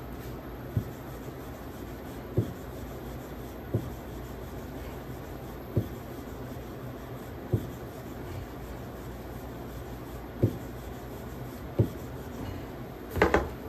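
Wooden rolling pin rolling chapati dough on a wooden board: a soft rubbing with a low knock every second or two, over a steady low hum. A louder, sharper double knock near the end.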